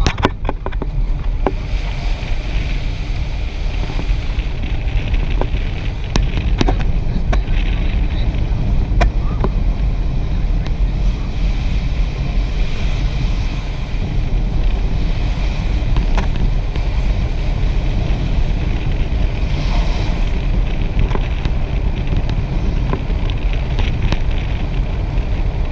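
Wind rushing over a GoPro on a moving vehicle, with steady low road rumble and scattered sharp ticks.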